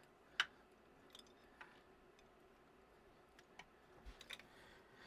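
A few faint, scattered light clicks and taps over near-silent room tone, one sharper click about half a second in and a small cluster near the end.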